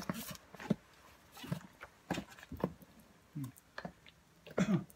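Quad roller skates clattering on a concrete floor: uneven knocks and rolls of the wheels as a beginner takes short, unsteady strides.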